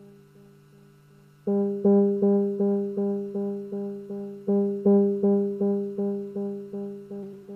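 Moog Mother-32 synthesizer note repeating through a 2hp Delay Eurorack module, about three strikes a second, each one decaying. The repeats are faint at first, then come back loud about a second and a half in as the delay's knob is turned.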